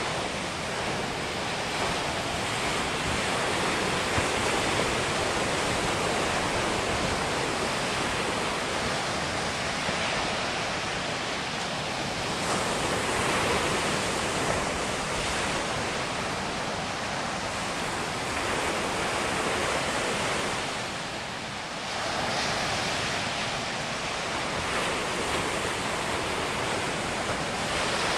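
Atlantic surf breaking on a sandy beach: a continuous wash of noise that swells and eases with the waves, dipping briefly about three quarters of the way through.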